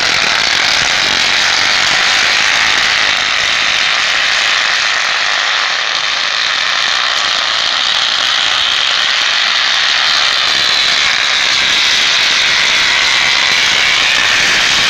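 A huge roll of bubble wrap rolled along the road as a bicycle's front wheel, its bubbles bursting so fast that the pops merge into one loud, steady crackle.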